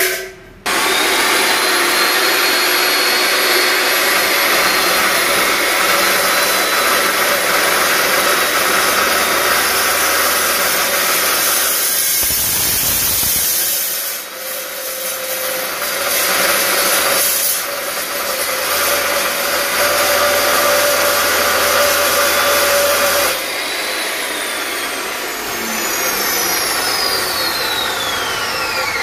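Makita LC1230 slow-speed metal-cutting saw with a 305 mm carbide-tipped blade, switched on with a click and sawing through thick steel pipe with a steady, loud cutting noise. About 23 seconds in it is switched off and the blade winds down with a falling whine.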